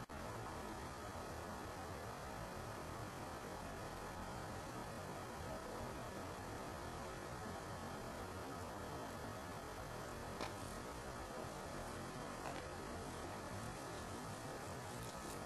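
Steady hiss and low hum of background noise, with a couple of faint clicks about ten and twelve seconds in.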